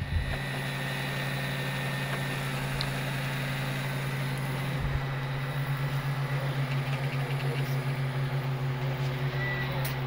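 Cooling fans of a Geeetech Prusa I3 3D printer running with a steady low hum. From about five and a half seconds in, the sound pulses several times a second. The noise is the sign of a bad fan on the back of the printer, which is noisy when first powered up and goes quiet once it warms.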